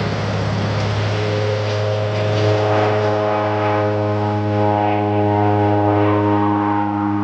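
Piston airplane engine and propeller running steadily: a droning tone with a clear stack of overtones that stands out more from about a second in.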